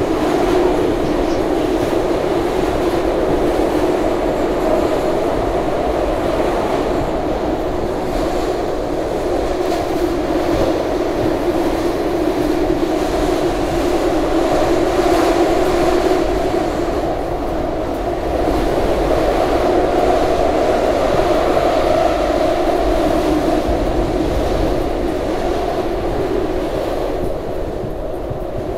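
SEPTA Market-Frankford Line subway car running at speed through the tunnel, heard from inside the car: a steady loud roar of wheels and motors with a humming tone. It eases slightly near the end as the train pulls into a station.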